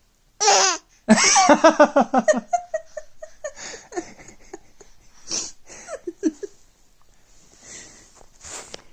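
People laughing: a short wavering vocal noise, then a loud burst of rapid laughter that trails off into giggles and breathy bits.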